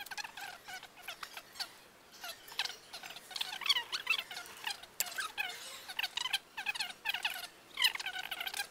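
A hand-held sanding stick, sandpaper glued onto a lollipop stick, rubbed back and forth on the painted sculpture's surface, making a run of short, irregular squeaky strokes.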